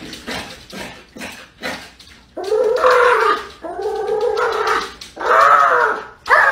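Small fluffy dog at a glass door giving three drawn-out whining cries of about a second each, starting a little over two seconds in, with a fourth rising cry beginning at the very end. Before them come a few quick taps of its paws on the glass.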